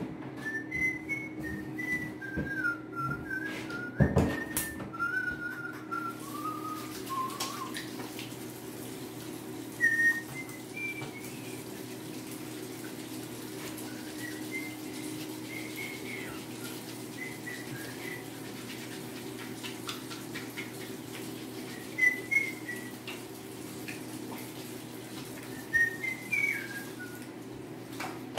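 Whistling: a wandering, mostly falling tune for the first several seconds, then scattered short whistled notes. Under it are a steady low hum and the light hiss of tap water running at a bathroom sink during handwashing. A sharp knock comes about four seconds in.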